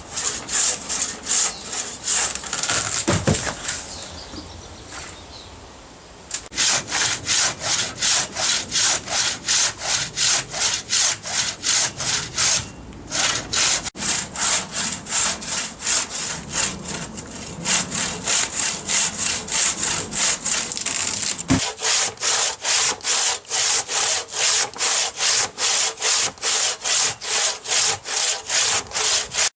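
Hand saw cutting through eucalyptus wood in quick back-and-forth strokes, about two to three a second, with a pause of a few seconds near the start.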